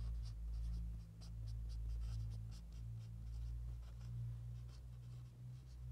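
Whiteboard marker squeaking and scratching on a whiteboard in many short strokes as a word is written, over a steady low hum.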